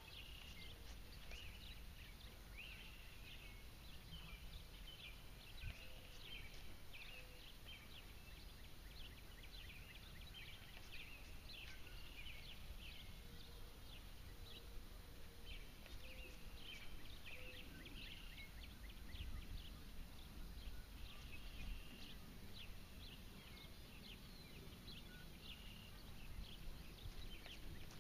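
Faint chorus of many short, high chirping calls from small animals, overlapping throughout, over a low steady rumble.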